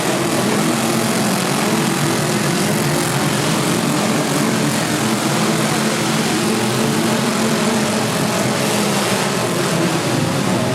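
Many four-cylinder demolition derby cars' engines running and revving together, a steady mass of engine noise whose pitches waver up and down.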